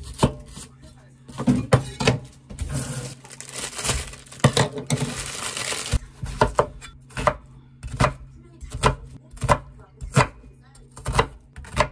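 Large kitchen knife chopping vegetables, an onion among them, on a wooden cutting board: a series of sharp knocks as the blade strikes the board, about two a second in the second half. About the first three seconds of rustling noise fill the middle.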